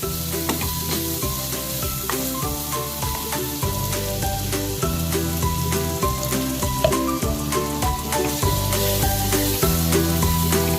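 Onion-and-spice masala sizzling as it fries in oil in a pan, with background music playing over it.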